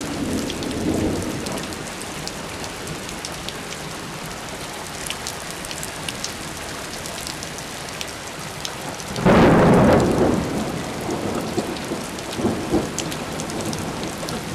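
Heavy rain falling on wet ground and puddles, a steady hiss with many sharp ticks of drops landing close by. About nine seconds in, a loud rumbling burst rises suddenly and lasts about a second.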